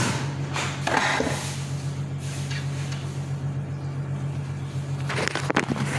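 A steady low mechanical hum, like a small appliance motor running, with a few light knocks from handling about a second in and a cluster of clatter near the end.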